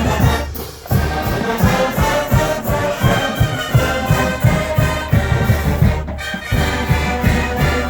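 Marching band playing: brass melody over a steady beat of bass drum hits, with a brief break about six seconds in.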